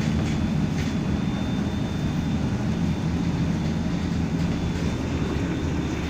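Steady low drone of a fishing trawler's engines and machinery, with a thin high whine running through it.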